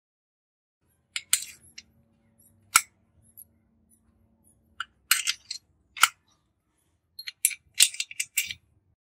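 Sharp metal clicks and clinks in short clusters, a spanner working on the engine mounting bolts and metal parts being fitted on a small motorcycle engine.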